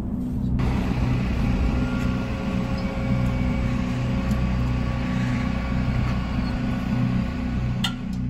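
Tow truck running beside a Mercedes Sprinter van hooked to its wheel-lift: a steady mechanical rumble with faint steady whining tones. There is one sharp clank near the end.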